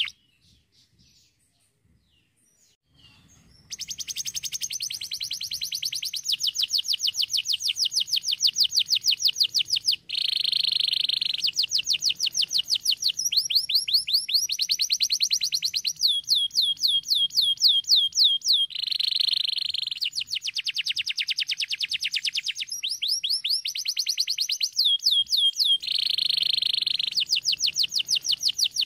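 Canary singing a long, unbroken song of fast trills, each a rapid run of repeated high notes. Buzzy rolling passages come in every few seconds. The song starts about four seconds in, after a brief near-silence.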